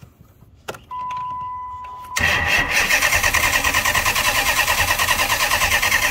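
A 6.1 Hemi V8 being cranked over by its starter motor, a steady, evenly pulsing chug that never catches: the fuel pump is unplugged, so the engine gets no fuel. A click and a steady high-pitched tone come about two seconds before the cranking starts.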